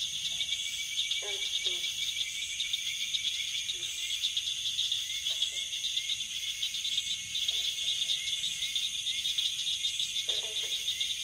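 Insects chirping in a steady, dense high chorus of fast trills, with short faint lower-pitched calls every second or two.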